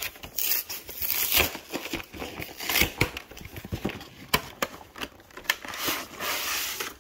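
Cardboard collector box and its plastic insert being handled and opened: irregular crinkling and rustling with sharp clicks and taps, with a longer stretch of crinkling near the end.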